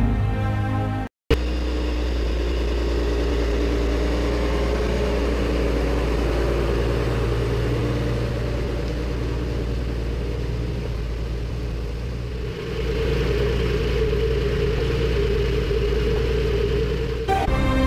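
Valtra tractor engine running steadily under load as it pulls a Kverneland plough through the soil, with the rumble and scraping of the plough working the ground, heard close up from a camera mounted on the plough. Music plays briefly at the start and cuts off about a second in, and the music returns just before the end.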